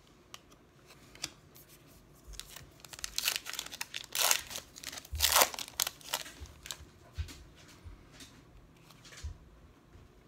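A 2019 Parkside trading-card pack being torn open: the foil wrapper rips and crinkles in several sharp bursts, loudest about four to five and a half seconds in. Light taps and flicks follow as the cards are handled.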